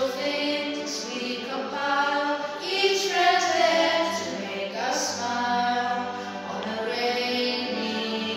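Music: a sung song, with voices holding long notes over a steady low accompaniment.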